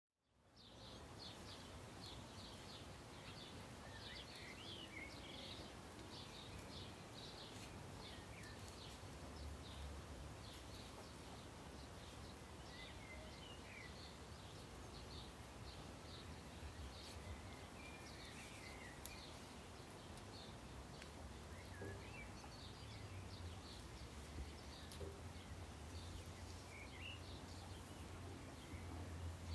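Faint ambience of small birds chirping now and then over a steady background hiss and a low hum, fading in at the very start.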